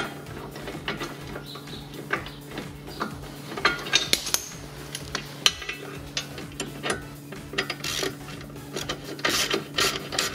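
A wrench working the lower nut off a worn front sway bar link's stud, while a hex key holds the stud from spinning. It gives irregular metal clicks and scraping, short strokes one after another.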